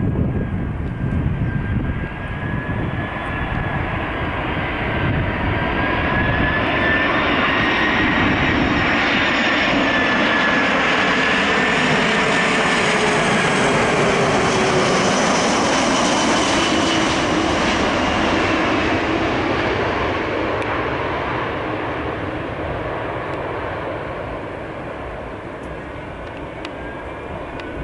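Airbus A340-300's four CFM56 turbofan engines on landing approach, passing close by. A whining jet noise with several gliding tones swells to its loudest about midway, then drops in pitch and fades away as the airliner moves off.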